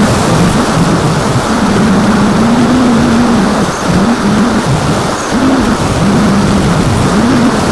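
Electric motor and propeller of an AXN foam FPV model plane in flight, heard from its onboard camera: a tone that rises and falls with the throttle, with dips around the middle, under heavy wind rush on the microphone.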